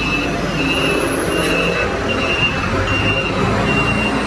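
Street traffic noise: a steady rumble of passing vehicles. A short, high tone repeats about every two-thirds of a second over it.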